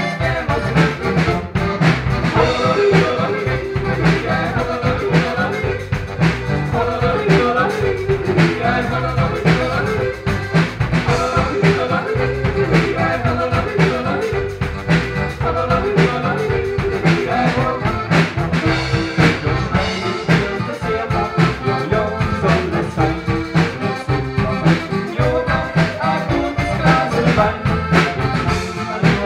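Lively band music led by brass instruments over a steady, regular beat.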